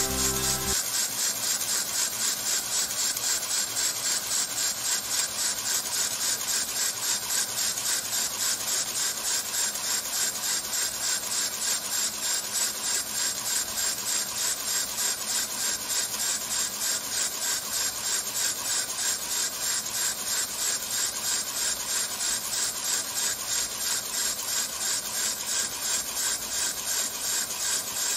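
3D-printed plastic mini beam engine running slowly on compressed air, a rhythmic hissing pulse of about three to four beats a second as air exhausts from its cylinder each stroke. The air supply is running low.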